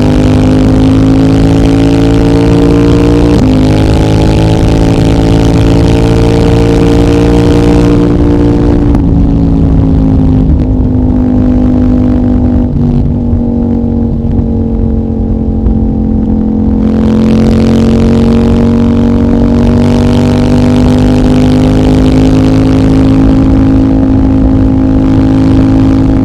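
CFMOTO 800NK's parallel-twin engine running under way through a decat pipe and the stock muffler. Under throttle the pitch climbs slowly, with a small step a few seconds in. At about eight seconds the throttle is rolled off and the pitch sinks for several seconds, then the throttle opens again near seventeen seconds.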